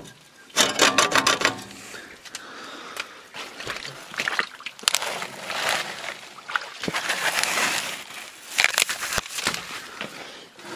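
Hands pushing through ferns and brush: leafy rustling with scattered knocks and scrapes, and a quick run of clicks about a second in.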